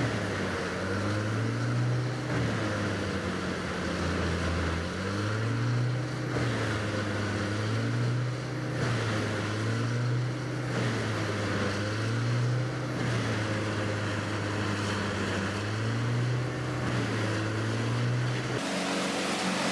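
A heavy machine's engine running, its pitch dipping and recovering in repeated cycles every couple of seconds. The sound changes abruptly near the end.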